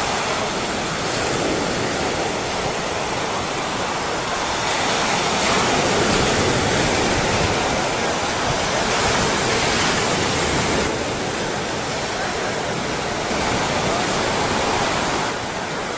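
Mediterranean Sea surf washing onto a sandy beach: a steady rush of breaking waves that swells and eases.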